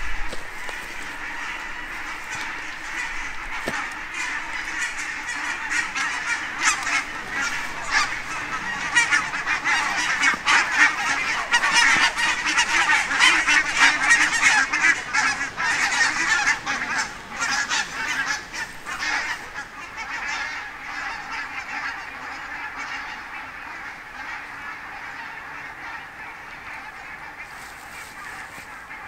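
A flock of geese flying overhead, many birds honking at once. The calling swells to its loudest about halfway through, then fades as the flock passes.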